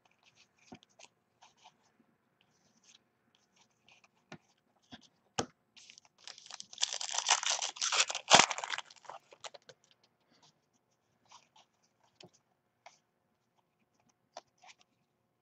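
Trading cards sliding and flicking against each other with scattered light clicks. About six and a half seconds in, the plastic wrapper of a card pack is torn open with a loud crinkling lasting about three seconds and a sharp snap near its end.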